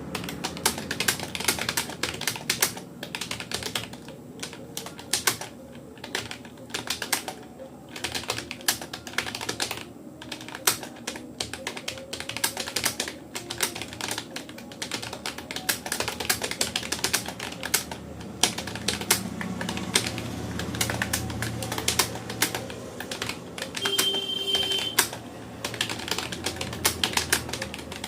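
Fast, continuous touch-typing on a Rapoo computer keyboard: a dense, irregular stream of key clicks with short pauses here and there.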